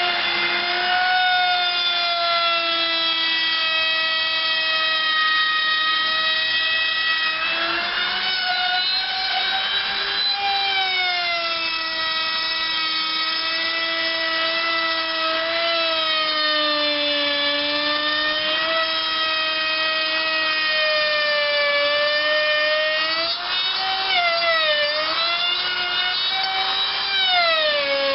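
Electric router running and cutting deeper into the wooden resonator guitar body for the cone recess. Its steady high whine dips and recovers in pitch several times as the bit takes the load, rising sharply near the end.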